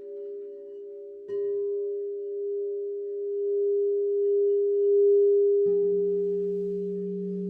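Crystal singing bowls ringing in overlapping pure, sustained tones. A new bowl sounds about a second in and swells, and a lower-pitched bowl joins near the end, while a higher tone pulses steadily.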